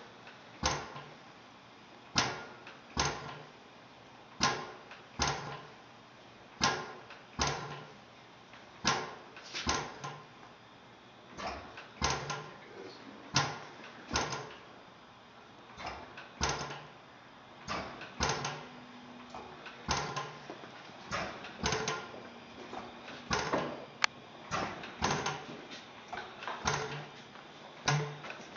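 Antique Blaisdell engine-compressor running at low speed, giving a train of sharp knocks a little over one a second that come somewhat closer together in the second half.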